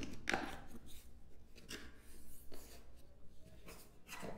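Cardboard camera box being opened by hand: a series of short scraping and rubbing sounds as the flaps are worked loose and the lid is lifted.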